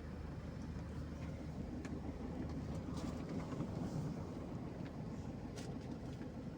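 Vehicle driving, a steady low rumble of engine and road noise, with a few faint scattered ticks over it.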